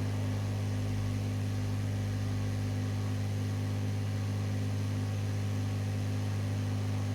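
Steady low electrical hum from a powered-up PC test bench, with its power supply and CPU cooling fan running; it does not change at all.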